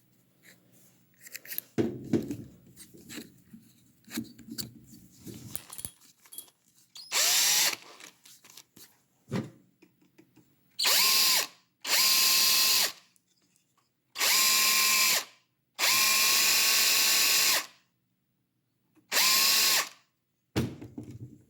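Power drill with a 9/64-inch bit drilling a hole in a 3D-printed plastic frame, run in six short bursts that each spin up with a rising whine. Clicks of handling the part come before the first burst.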